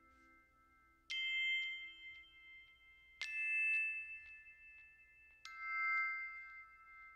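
Background music: three struck chime- or glockenspiel-like notes, each ringing out bell-like for a couple of seconds, over sustained high tones.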